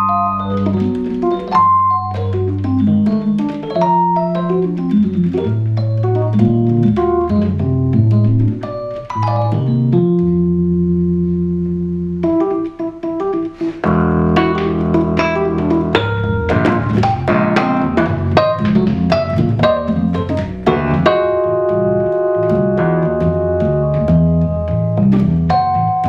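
Roland V-Accordion (FR-3xb digital accordion) played in a free jazz improvisation, with fast staccato jabs on the treble buttons, typewriter-style. The result is dense runs of short notes over low notes, with a held chord about ten seconds in before the busy playing resumes.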